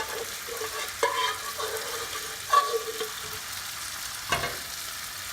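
Boiled jackfruit sizzling in a frying pan of olive oil, onions and garlic, stirred with a utensil that scrapes and knocks on the pan a few times.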